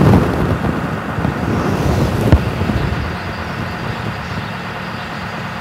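Wind buffeting the microphone with a low rumble, gusting hard at first and easing after about three seconds, with one sharp knock a little over two seconds in.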